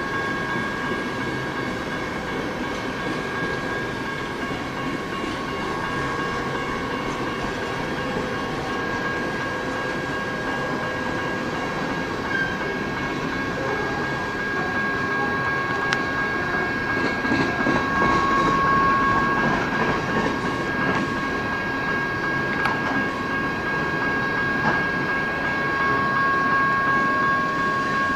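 Coal cars of a freight train rolling past: a steady rumble of steel wheels on rail with clickety-clack over the joints, and steady high-pitched tones running over it.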